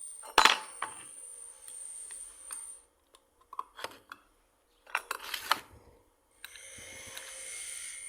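Metal parts of a hand plane clinking and knocking as they are handled. A sharp knock comes about half a second in and a cluster of clinks about five seconds in, broken by abrupt silences.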